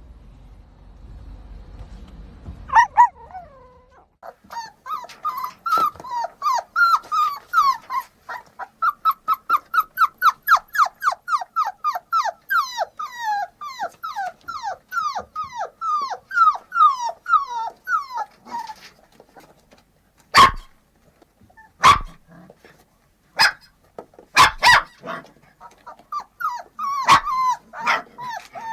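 Puppies yelping in a rapid run of short, high, falling yips, about three a second, then a few single sharp, loud barks and more yelps near the end.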